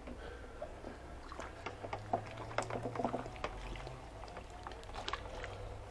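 Water being poured into a cat food dish to soak off baked-on food, with scattered small taps and a faint low hum through the middle.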